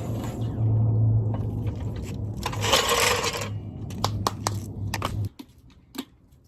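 Metal clinks and a scrape of hand tools against metal, several sharp clinks about four to six seconds in, over a steady low hum that cuts off suddenly about five seconds in.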